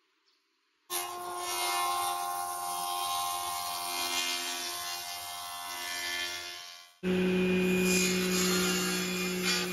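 A thickness planer running and planing a glued-up wooden board, a loud steady machine noise that tails off after about six seconds as the pass ends. Then, abruptly, a table saw running freely with a steady low hum.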